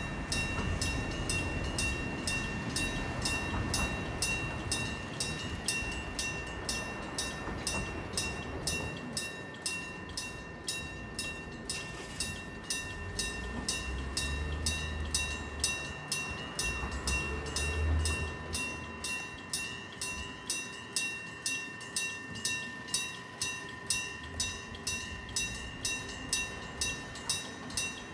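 Japanese railroad crossing warning bell ringing its steady electronic clang, about two strikes a second, while a train rumbles past. The low rumble swells twice, early on and around the middle, and near the end the bell is heard more clearly on its own.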